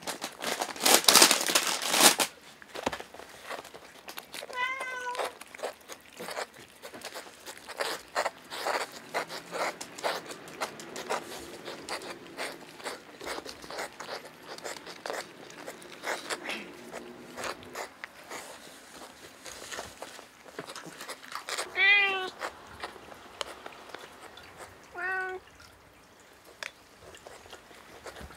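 Plastic bag crinkling loudly at first, then cats licking and chewing silvervine powder with many small clicks and crunches. A cat meows three times: about five seconds in, loudest around the 22-second mark, and once more shortly after.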